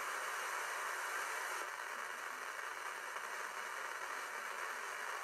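Steady hiss of radio static from a software-defined receiver on the 2-metre (144–146 MHz) amateur band, with no voice on the tuned frequency.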